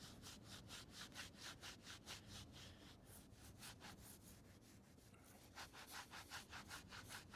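Cloth rubbing Autosol metal polish back and forth on a chrome motorcycle exhaust, faint quick strokes about four a second, pausing midway and starting again about two seconds before the end.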